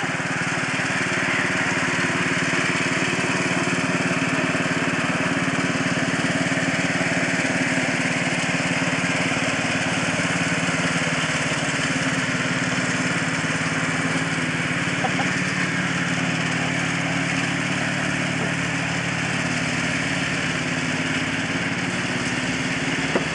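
Small garden tractor engine running steadily as the tractor is driven along, its pitch wavering slightly partway through.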